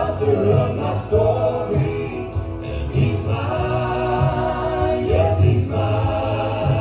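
Gospel song sung by a group of voices over instrumental accompaniment with a steady bass.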